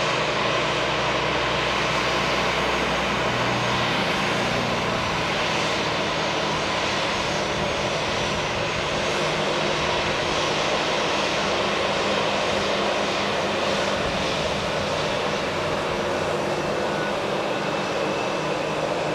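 Airbus A320's two turbofan engines running steadily at taxi power: an even rush of jet noise with a thin whine above it.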